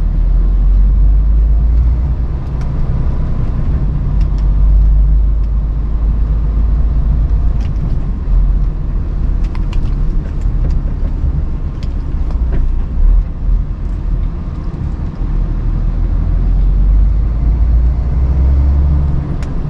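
Lorry driving, heard from inside the cab: a steady low engine and road rumble, with scattered short clicks and rattles.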